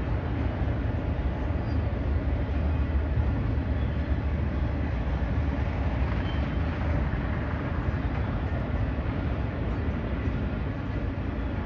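BNSF freight train rolling past, a steady deep rumble with no horn or sudden noises.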